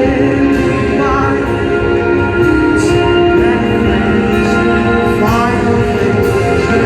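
Band music with a singer, who holds long notes and slides up into a couple of phrases.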